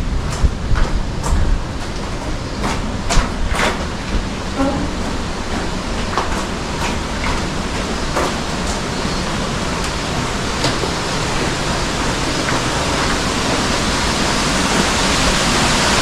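Footsteps on a rocky tunnel floor over the steady rush of a gorge stream and waterfall, the water growing louder toward the end. The steps are close together at first and thin out later.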